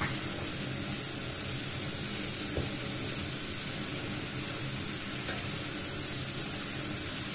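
Sliced zucchini, carrots and bell peppers sizzling steadily in a frying pan as they are sautéed and stirred with a wooden spatula.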